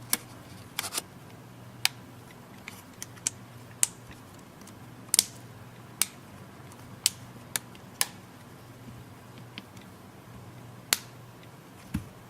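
Irregular sharp clicks and taps of small plastic and metal parts as a tablet's mid-frame is fitted back on and pressed into place, about a dozen over several seconds. A steady low hum runs underneath.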